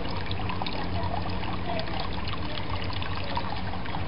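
Water trickling steadily into a garden pond, with many small drips and splashes over a low steady hum.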